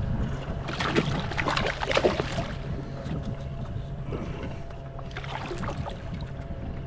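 Knocks and rattles of gear and a landed fish being handled on a fishing kayak, thickest in the first two and a half seconds and then sparser, over a steady low hum.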